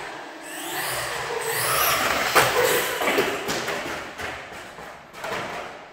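Electric RC car's motor whining and rising in pitch in repeated bursts of throttle as it speeds off, with a sharp click about two and a half seconds in.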